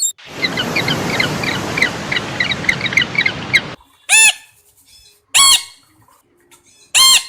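Busy high-pitched chirping over a steady hiss for a few seconds. It stops suddenly and a bird gives three loud, short squawks about a second and a half apart.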